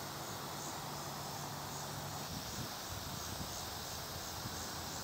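Faint, regular high chirping of insects, about two a second, over a steady outdoor hiss.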